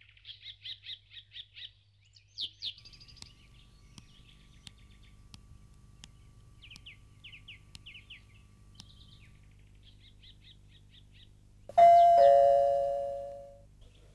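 Small birds chirping in quick repeated series, then about twelve seconds in an electric ding-dong doorbell rings once, a higher note followed by a lower one, which fades away; the doorbell is the loudest sound.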